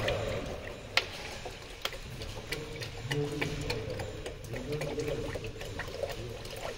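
Old gear oil trickling in a thin stream from a DSG DQ200 gearbox drain hole into a plastic bottle held against it, with a few sharp ticks, the loudest about a second in.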